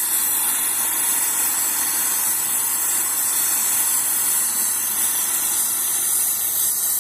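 A steady, loud hiss of rushing air or steam that cuts in suddenly and holds an even level.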